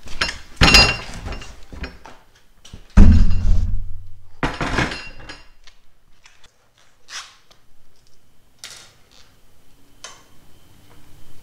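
Handling of a plywood base and steel mobile-base caster brackets: a clatter, then a heavy wooden thunk about three seconds in and another knock soon after, followed by light metallic clicks.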